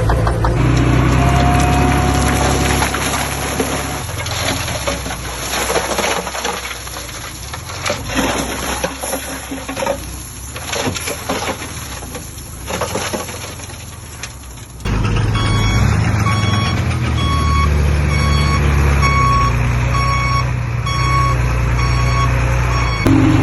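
Heavy diesel machinery running and working, with a varying, rattling engine sound. About two-thirds of the way in the sound changes abruptly to a heavy vehicle's reversing alarm beeping at an even pace, about one and a half beeps a second, over a steady engine.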